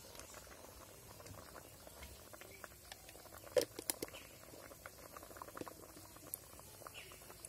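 Tamarind-water sauce with pumpkin pieces bubbling at a boil in a steel kadai: a faint, steady patter of small pops, with a few louder pops a few seconds in.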